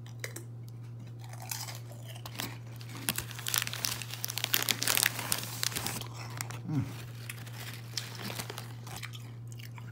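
Crunching and chewing of a Ruffles Baked Flamin' Hot ridged potato chip close to the microphone. A dense crackle starts about three seconds in and thins out toward the end, over a steady low hum.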